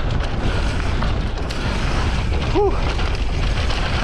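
Steady low rumbling noise of a mountain bike riding down a dirt trail: wind buffeting the microphone over the tyres rolling on dirt. A brief vocal sound about two and a half seconds in.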